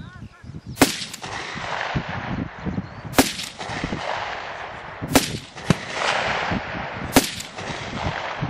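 AK-pattern assault rifle fired in single shots: four sharp cracks about two seconds apart, each trailing off in a long echo. A fainter crack follows shortly after the third.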